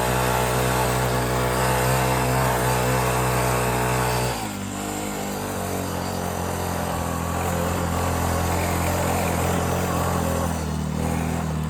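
Vehicle engine running steadily under throttle while driving through snow. Its note drops abruptly about four seconds in, then holds steady at a lower pitch, with another shift near the end.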